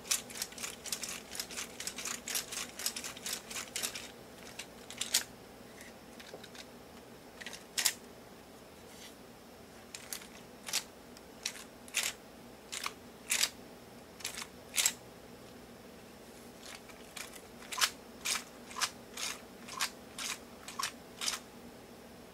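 3D-printed plastic prosthetic hand (Osprey hand) being flexed: its plastic fingers and hinge pins click and clack as they close and spring open. A quick run of clicks in the first few seconds, then single clicks every second or so.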